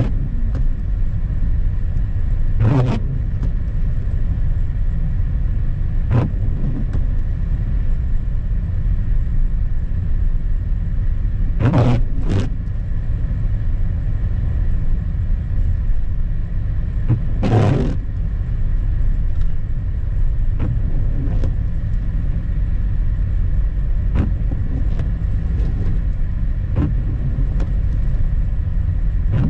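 Car driving on a snow-covered road, heard from inside: a steady low rumble of tyres and engine, with a few short knocks scattered through it.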